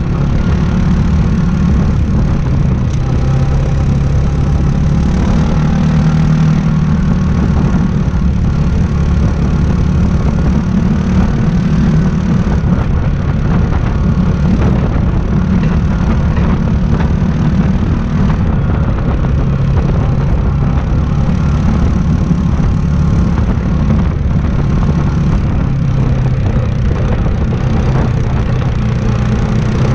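Yamaha Grizzly 700 ATV's single-cylinder four-stroke engine running steadily while riding a dirt trail, its pitch rising and falling a little with the throttle.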